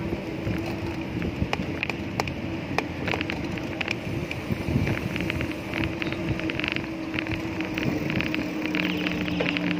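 Wind buffeting the microphone over the rumble of a bicycle rolling along a road, with scattered light clicks and rattles and a steady low hum.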